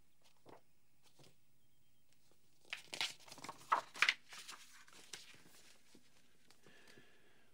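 Pages of a book being flipped through, a quick run of paper rustles and flutters for about two and a half seconds starting near three seconds in, with a few faint paper ticks before it.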